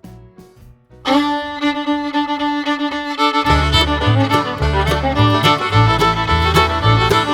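Background music: a quiet passage, then a louder phrase with long held notes comes in about a second in, and a pulsing bass line joins partway through.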